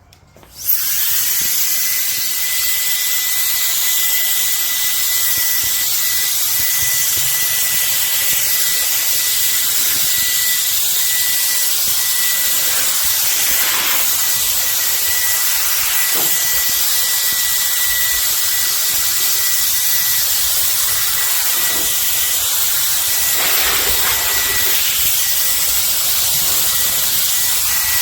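Cordless electric air duster (CCV F33) switching on about a second in and running steadily: a loud rush of air with a thin, high motor whine that settles at a constant pitch.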